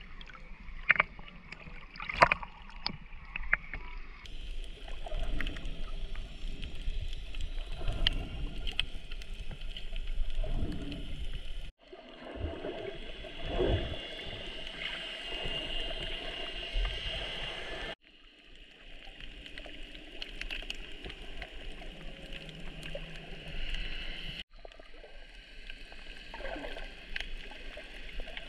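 Water sloshing and splashing against a camera at the sea surface, with several sharp splashes in the first few seconds. Then muffled underwater sound with a steady hum and bubbling, changing abruptly a few times.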